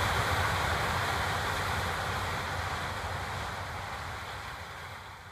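Claas Lexion 760 TerraTrac combine harvester working through standing maize: a steady mechanical noise of engine and threshing machinery that fades gradually until it is almost gone near the end.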